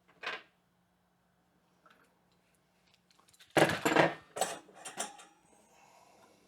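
Metal tools and bench grinder parts clinking and clattering as they are handled: one short clink just after the start, then a burst of sharp clatter about three and a half seconds in. The wrench, socket and the grinder's loosened arbor nut are being handled.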